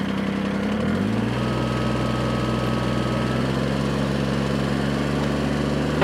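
An engine running steadily at an even drone. About a second in, its tone drops to a lower steady pitch and holds there.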